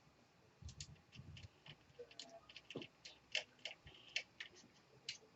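Faint, irregular small clicks and taps of hard plastic and metal laptop parts and tools being handled, with a couple of soft low thumps.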